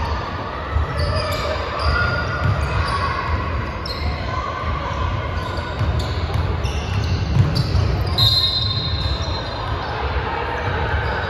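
Basketball bouncing and sneakers squeaking on a hardwood gym floor during play, with repeated thuds and short high squeals echoing in a large hall.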